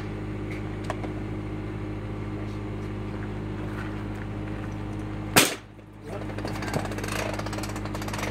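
Steady low machine hum throughout, with a few light clicks and one sharp knock about five and a half seconds in as an awning rod works the RV's awning loose.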